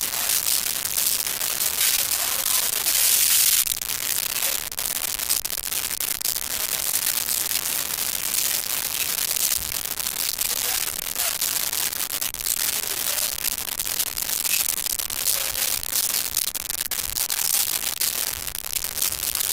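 Constant crackling hiss, a little stronger for a couple of seconds near the start.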